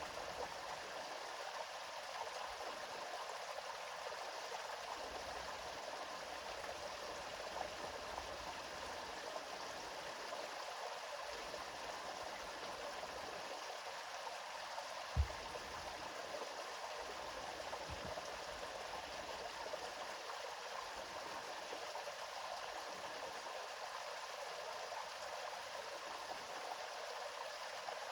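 Flowing river water, a steady rushing of a stream. About halfway through there is one brief low thump, and a fainter one a few seconds later.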